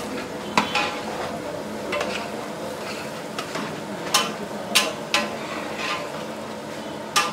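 Long metal spatula stirring and scraping against a large aluminium cooking pot, with sharp scrapes and knocks several times at irregular intervals, over a steady sizzle of rice, small onions and dried red chillies frying.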